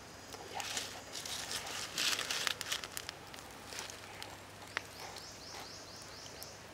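Charcoal fire under a skewered chicken leg crackling and hissing in short bursts. About five seconds in comes a quick run of high, evenly spaced chirps, lasting about a second and a half.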